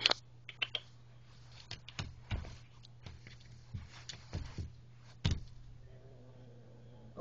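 Scattered light taps, scratches and handling knocks as a hand works on the carpet at the gap under a closed door, the loudest at the very start and about five seconds in. A faint drawn-out sound comes in near the end over a steady low hum.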